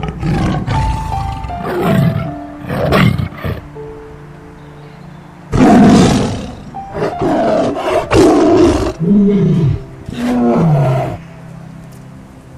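Tiger roaring and growling in a string of loud, irregular calls, about eight in all with a pause around the fourth to fifth second. Soft background music plays under the calls.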